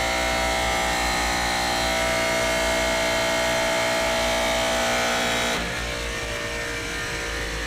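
AAON rooftop HVAC unit running, a steady machine hum of compressors and fans with a whine in it. A little over five seconds in the tones drop out suddenly and it gets quieter.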